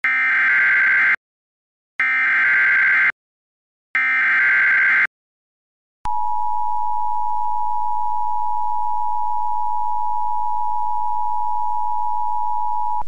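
Emergency Alert System header: three bursts of buzzy SAME digital data tones, each about a second long with about a second between them. About six seconds in, the steady EAS two-tone attention signal starts and is held for about seven seconds, cutting off at the end.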